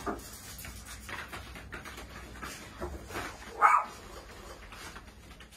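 Excited dogs whining and barking as they greet their returning owner, with one loud, short bark a little past halfway.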